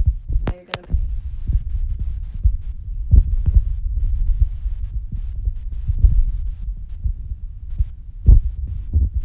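Loud, muffled low rumble with irregular thumps and knocks, the kind made by something rubbing and bumping against the recording phone's microphone, burying any speech. A few sharper knocks come right at the start.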